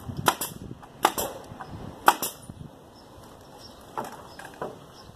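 Pneumatic nail gun firing 2-inch nails into wooden fence boards: three sharp shots about a second apart, then two fainter ones near the end.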